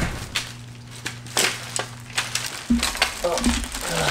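A bundle of fishing rods in clear plastic sleeves being handled: the plastic crinkles and rustles and the rods clack together, with a sharp knock right at the start and some low bumps near the end.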